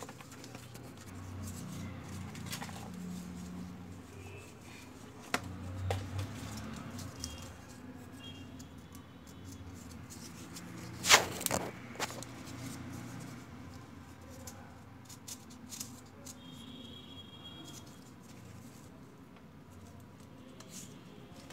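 Hands handling and fitting cardboard parts together: scattered small clicks, taps and knocks, with a louder cluster of knocks about halfway through, over a low steady hum.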